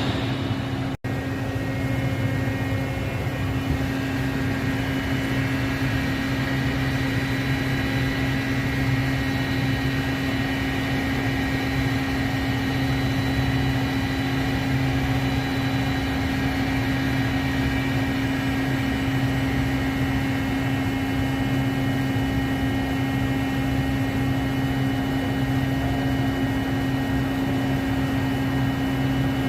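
KAOMING KMC-423RF five-face machining center running with a steady mechanical hum and several faint high steady whines. There is a brief dropout about a second in.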